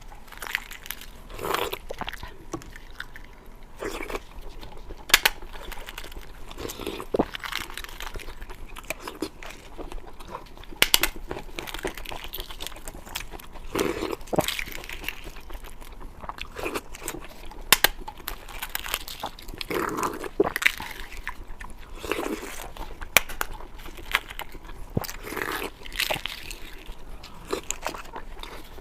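Close-miked eating sounds: irregular bites, chewing and wet mouth smacks, with now and then a sharper crunchy bite.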